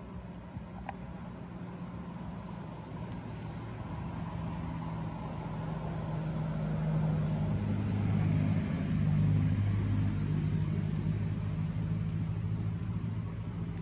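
Motor vehicle engine running, a steady low hum that grows louder to a peak about two-thirds of the way through and then eases off, like a vehicle drawing near and moving away.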